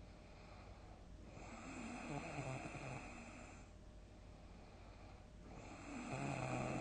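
A person snoring: two long snores, each a rough low buzz that swells and fades. The first comes about a second in; the second starts near the end.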